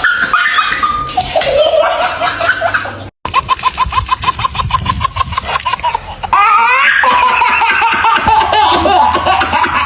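Someone laughing hard, with a fast run of even ha-ha-ha pulses in the middle. The sound cuts off abruptly twice, as between spliced clips.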